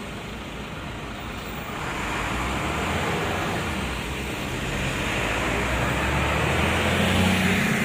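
Road traffic noise from passing vehicles, growing louder from about two seconds in, with an engine's low hum near the end.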